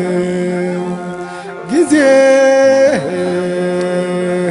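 An Ethiopian Orthodox Tewahedo mezmur, a devotional hymn sung in Amharic. A voice holds long, drawn-out notes, and a new, louder sung phrase starts about two seconds in.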